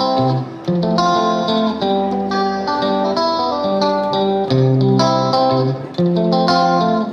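Background music: a melody of separate pitched notes.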